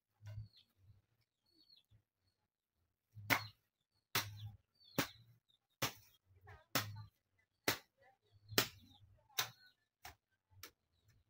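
Hand hoe striking and chopping into garden soil, about ten sharp strokes roughly one a second, starting about three seconds in.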